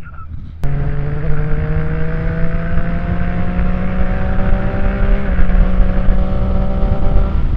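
Triumph Street Triple R 675 three-cylinder motorcycle engine pulling under acceleration while overtaking. It cuts in suddenly about half a second in, and its pitch climbs slowly with a short step about five seconds in. Heavy wind rush covers it.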